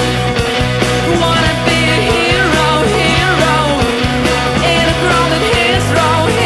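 Rock music: a held bass line that moves to a new note every second or so, under a lead melody that bends up and down in pitch.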